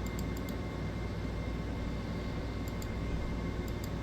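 Steady background hum and hiss of a small room, with short runs of faint rapid clicking near the start and again near the end.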